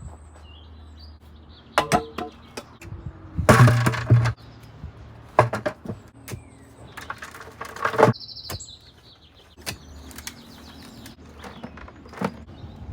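Hand digging in rocky soil: a digging tool strikes and scrapes the ground in irregular knocks, the longest and loudest a rough scrape a few seconds in. Birds chirp between the strokes.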